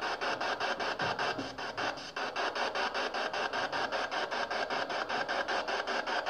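PSB7 spirit box sweeping through radio stations: steady radio static chopped into a fast, even pulse of about seven a second.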